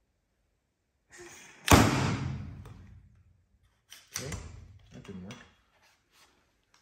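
One loud, sharp knock of metal tools on the workbench, about two seconds in, dying away over about a second, as a wrist-pin retaining clip is driven in with a piston-clip installation tool. A few softer knocks and handling sounds follow.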